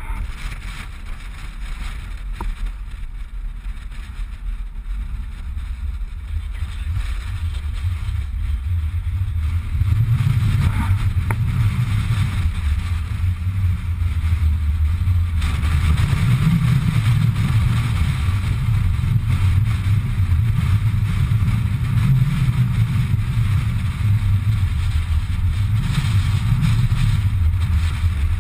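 Wind buffeting an action camera's microphone: a steady low rumble that grows stronger about ten seconds in and again around fifteen seconds.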